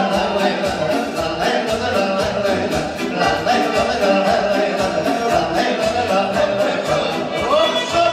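Live band playing fast Romanian folk dance music for a circle dance (hora), with a steady driving beat under a wavering lead melody.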